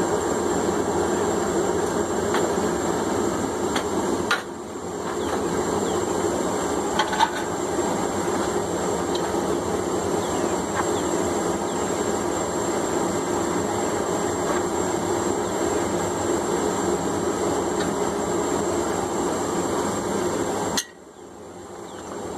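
A forge running with a steady rushing noise, with a few light metallic clinks in the first seconds. The noise dips briefly about four seconds in and drops away near the end.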